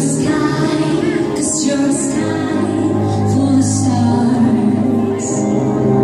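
Stage-show music with a woman singing over it, heard from the audience in a theatre.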